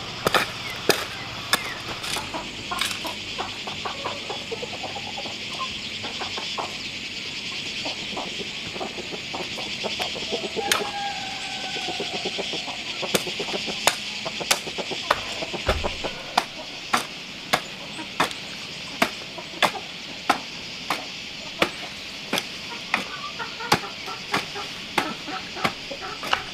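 A hand hoe chopping into loose dry soil, strike after strike: irregular at first, then settling into a steady rhythm of about one strike a second in the second half.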